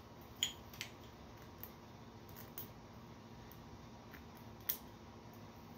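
Scattered small metallic clicks as a metal snap ring is worked by hand down the body of a 7.3 Powerstroke diesel injector. The clicks come about half a second in, again just after, and once more near the end, over a faint steady hum.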